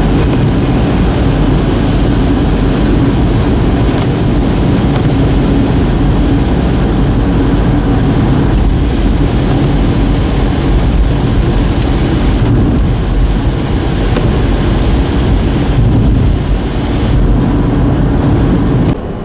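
A car driving: a steady, loud rumble of engine and tyre noise with a low hum, which drops away abruptly at the very end.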